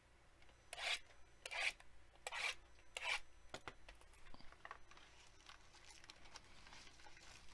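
Cardboard and wrapping of a sports-card box being torn and rubbed open by hand: four short rasping strokes, about one a second, in the first three seconds. Then softer rustling and small clicks as the wrapped pack is handled.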